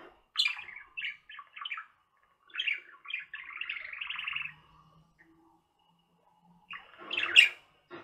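Pet budgerigars chirping and warbling in quick bursts, with a run of steady warbling in the middle, a pause of about two seconds, then a louder call near the end.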